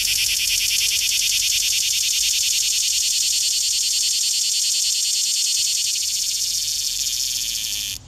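Male cicada singing: a steady, shrill, high-pitched buzz with a rapid pulse, made by the vibrating tymbals on its abdomen as a mating call. It stops abruptly at the end.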